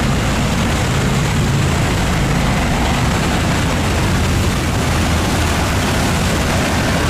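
Boat engines running steadily: a low hum under a constant wash of noise.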